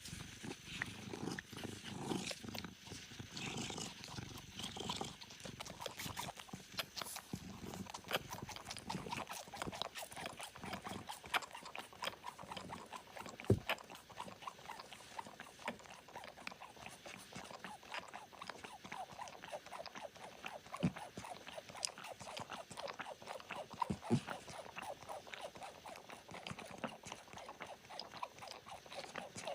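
Kittens suckling milk: a steady run of small wet clicks and smacks, irregular and close, with a few louder ones along the way.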